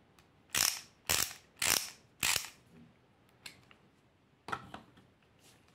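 Kraftool ratchet screwdriver's ratchet clicking in four quick runs about half a second apart as the handle is swung back and forth, followed by a couple of fainter single clicks.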